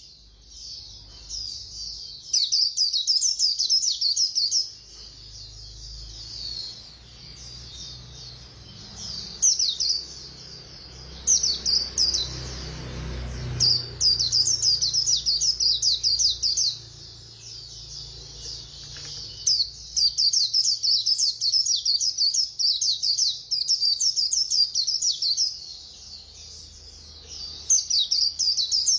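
White-eye (chim khuyên) singing its fast 'líu' song: long bursts of rapid, high twittering chirps, several seconds each, broken by short pauses.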